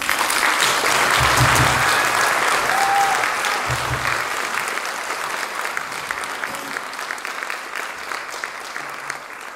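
Audience applauding in a hall, loudest in the first few seconds and gradually dying away.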